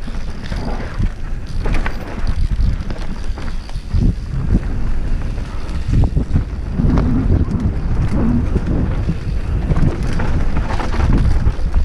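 Wind buffeting the microphone over the hum of a downhill mountain bike's knobby tyres rolling fast on a dirt trail, with repeated knocks and rattles as the bike goes over bumps and ruts.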